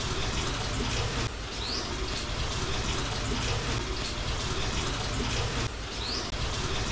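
Water running steadily, as from a tap, with a short high rising chirp twice.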